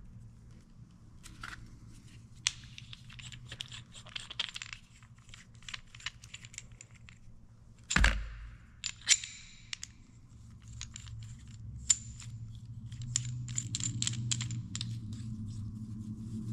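Small steel parts clinking, tapping and scraping against a cast-iron tractor PTO housing and the workbench as it is worked on by hand, with one heavier knock about eight seconds in. A low steady hum sits underneath and grows louder near the end.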